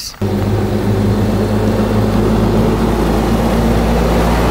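Mack semi truck's diesel engine running steadily close by as the truck passes on a gravel road.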